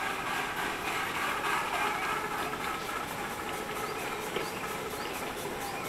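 A 7¼-inch gauge miniature steam locomotive working, giving a steady mixed noise of steam and running with no clear beat.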